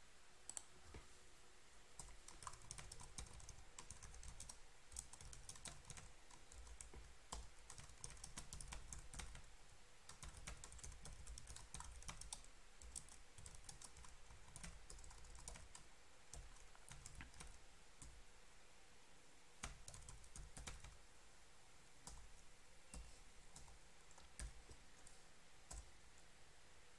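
Faint typing on a computer keyboard: quick keystroke clicks in irregular bursts with short pauses, busiest in the first half.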